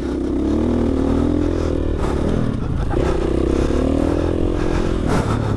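GasGas 450 four-stroke single-cylinder motocross bike ridden on a dirt track, its engine note falling and climbing again with the throttle, dipping about two seconds in and again near the end.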